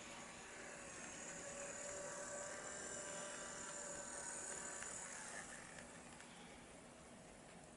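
HO-scale EF58 model electric locomotive running along the track: a faint whine from its small motor and gears, with wheels rolling on the rails. It grows louder as it passes close, then fades.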